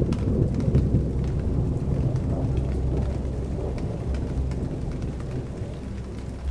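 Thunder rumbling with rain, a steady low rolling noise with scattered crackles.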